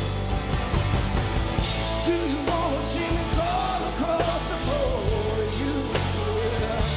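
Live rock band playing a slow number: steady drum beat and bass under electric guitar, with a gliding melodic lead line over the top.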